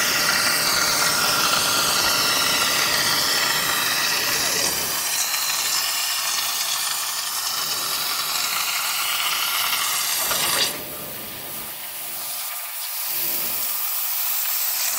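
CNC plasma torch cutting sheet steel: a loud, steady hiss. About ten seconds in it drops sharply to a quieter hiss.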